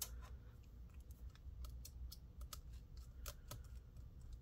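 Faint, irregular small clicks and ticks of a PH1 Phillips screwdriver working a laptop battery screw that will not lift out on the bit.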